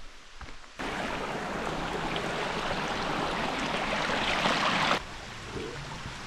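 A small babbling creek: a steady rush of running water that starts abruptly about a second in, grows a little louder, and cuts off sharply near five seconds, leaving a fainter steady rush.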